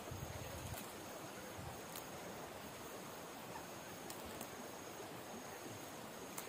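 Faint, steady outdoor hiss with a few soft low thumps near the start and scattered light clicks and rustles from hands picking leafy greens.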